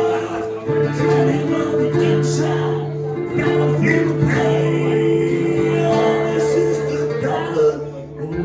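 Band music: an instrumental passage led by guitar, with long held notes and no singing.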